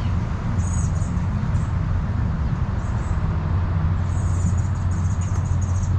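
Small birds chirping high and thin on and off, in a longer run near the end, over a steady low outdoor rumble.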